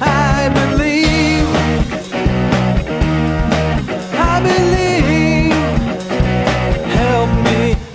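Background rock music with a steady beat and a wavering lead melody.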